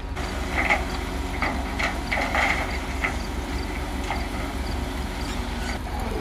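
Heavy diesel machinery running steadily, with scattered metallic clanks and knocks during the first three seconds or so.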